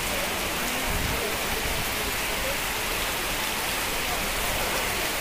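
Heavy rain pouring down onto wet, puddled pavement: a steady, even hiss.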